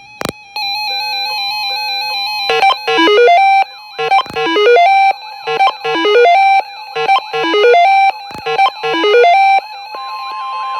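Synthesizer music playing a repeating figure of quick descending note runs over held tones, punctuated by sharp percussive hits. About ten seconds in, a steady high tone comes in under the music.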